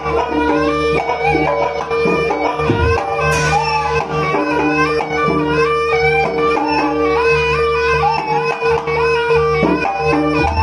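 Jaranan music: a reedy shawm (slompret) plays a winding melody over a steady held drone and gamelan percussion, with repeated drum strokes and a bright cymbal-like crash about three seconds in.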